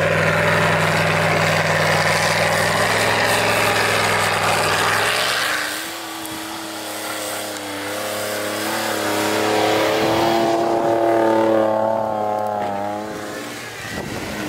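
Off-road Jeep engines revving hard while climbing through deep snow. First the Jeep Grand Cherokee pulls at a steady high pitch with a hiss over it. About five seconds in, a Jeep Wrangler takes over, its engine pitch rising and falling as it works up the slope.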